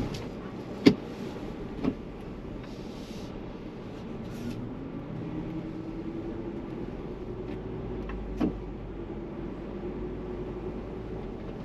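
Ford Bronco driving slowly over a rough trail: steady engine and drivetrain running, with the engine note climbing about five seconds in and then holding. A few sharp clinks and knocks from the truck bouncing over obstacles come through, the loudest about a second in.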